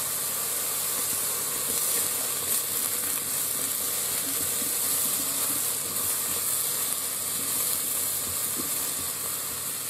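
Sliced mushrooms sizzling in olive oil in the nonstick inner pot of an Aroma 20-cup digital multicooker on its sauté setting: a steady frying hiss, with a spatula scraping now and then as they are turned.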